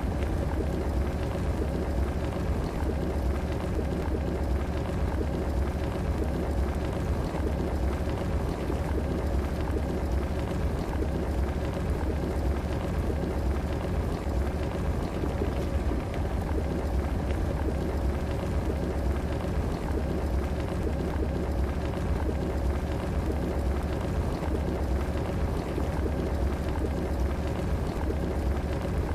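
Electric kettle heating water: a steady, even bubbling and rushing with a deep low hum underneath, holding level without change.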